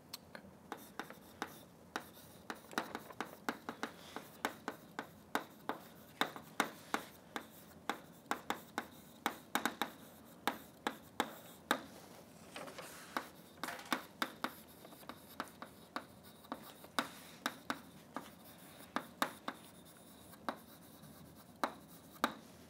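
Chalk writing on a blackboard: a quick, irregular run of sharp taps and short scratches, several a second, with brief pauses between words.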